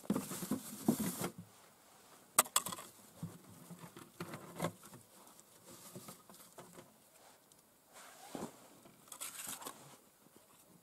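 Hands rummaging in a plastic fishing box and handling ice-fishing tackle: rustling and crinkling, with a few sharp clicks about two and a half seconds in and another rustle near the end.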